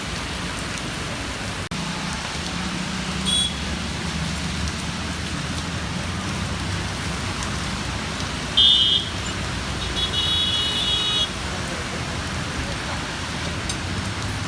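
Heavy rain falling steadily, with a low rumble of road traffic underneath. Short high-pitched tones sound a few times, the loudest a little over halfway through.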